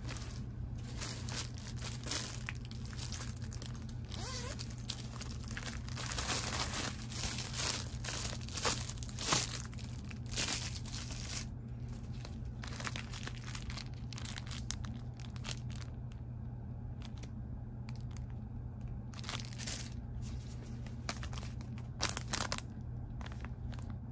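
Hands rummaging in a fabric amenity bag and handling a paper earplug packet: rustling and crinkling in irregular bursts, busiest in the first half and again near the end, over a steady low hum.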